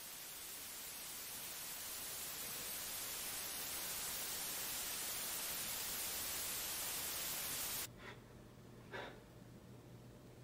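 A steady hiss of static-like noise that slowly swells louder, then cuts off abruptly about eight seconds in, leaving quiet room tone.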